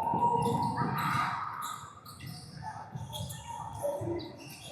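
Indoor basketball game sounds in a gym: a ball bouncing, sneakers squeaking on the court floor, and scattered voices, with the hall echoing.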